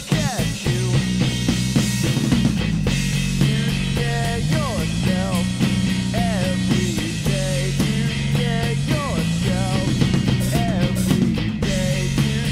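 Rock band playing live on electric guitars and a drum kit, with a melody line that bends in pitch over the steady low end. A run of drum hits comes right at the start.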